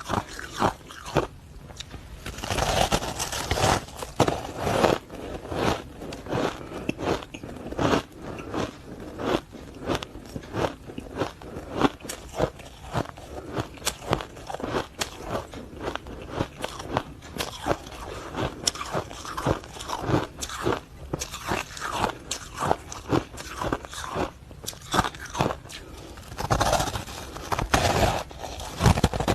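Close-up crunching of ice being bitten and chewed: a dense, irregular run of sharp crunches, several a second, louder in spells near the start and near the end.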